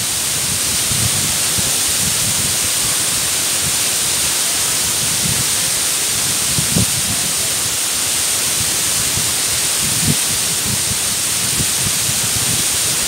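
Mumlava waterfall's steady rush of falling water pouring into its pool, with a few brief low bumps.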